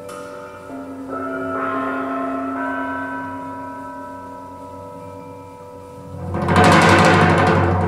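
Percussion music from a vinyl test record played over hi-fi floor-standing loudspeakers: long ringing pitched tones that slowly fade, then a sudden loud crash about six seconds in, a soft-to-full-blast swing in dynamics.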